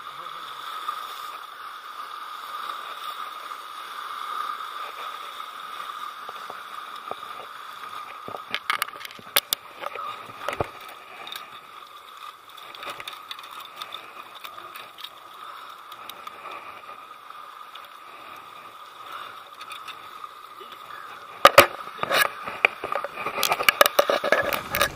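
Steady wind and water noise on a rocky lakeshore, with scattered clicks of footsteps on the rocks about a third of the way in. Near the end comes a run of sharp knocks and splashes as a hooked striped bass is hauled out of the water onto the rocks by hand.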